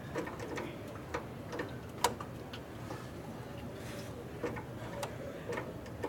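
Scattered light metallic clicks and taps of hand tools, a socket ratchet among them, working at a motorcycle engine's distributor, with one sharper click about two seconds in.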